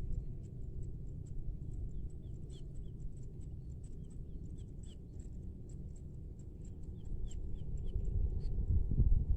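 Outdoor ambience with a steady low rumble and small birds chirping high and rapid, with short falling chirps in groups of three or four. The rumble grows louder near the end.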